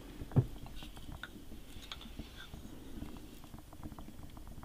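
Quiet handling of a wooden mallet and wooden stakes in a wooden box. There is one knock about half a second in, then small clicks and taps.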